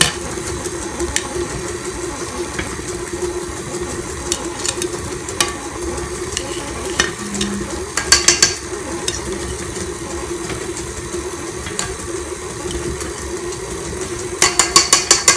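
KitchenAid Artisan stand mixer running steadily on low speed, its flat beater churning through dry flour mixture as clumps of butter are added. Scattered clicks throughout, and two quick runs of sharp clicking, about halfway through and near the end, are the loudest sounds.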